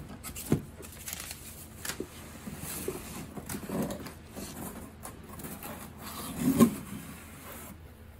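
Large cardboard clutch kit box being turned and slid on a wooden table and its lid flap opened: scraping and rustling with a few knocks, the loudest thump about six and a half seconds in.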